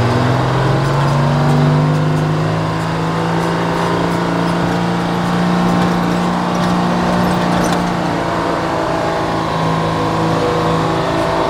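Detroit Diesel two-stroke diesel engine of a White 4000 semi truck, heard from inside the cab as the truck drives off. The engine note rises in pitch over the first few seconds as it pulls, then holds steady.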